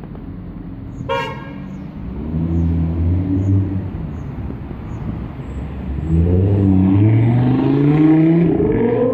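Civil-defence siren winding up: a low tone swells, sinks, then climbs into a smooth rising wail near the end. A brief toot sounds about a second in.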